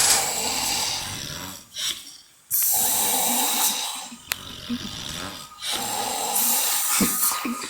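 Two people snoring in turn, in long snoring breaths of one to two seconds each, with short pauses between them.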